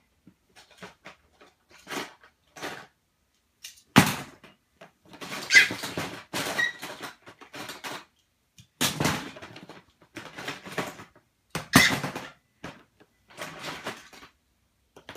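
Toy cars clattering and knocking against each other and the sides of a clear plastic storage bin as a baby rummages through it. The sound comes in irregular bursts with short pauses, with a few louder knocks among them.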